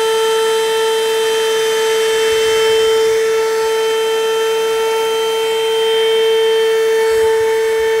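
MYTVS 3-in-1 handheld 12-volt car vacuum cleaner running in vacuum mode: a steady, high motor whine over a rush of air as its brush nozzle sucks paper scraps off a car seat.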